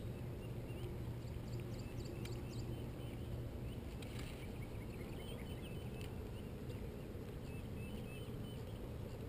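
Small birds chirping faintly in short calls, including a quick run of about five notes a couple of seconds in, over a steady low rumble.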